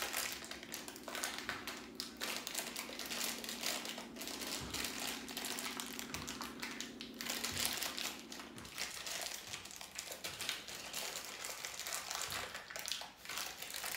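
Plastic crinkling with small clicks and taps as a small plastic Happy Meal toy and its wrapping are handled and fitted together, over a low steady hum that stops about nine seconds in.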